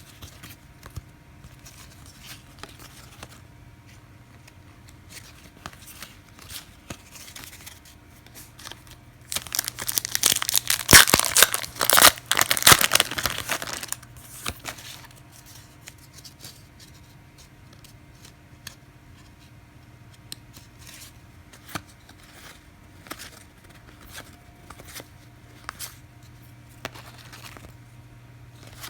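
A 1999 Skybox Thunder card pack's wrapper being torn open and crinkled, loudest for about four seconds in the middle. Before and after it there are faint scattered clicks.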